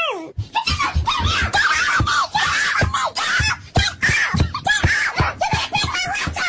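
Children's high-pitched voices screaming and shouting in play, mixed with laughter.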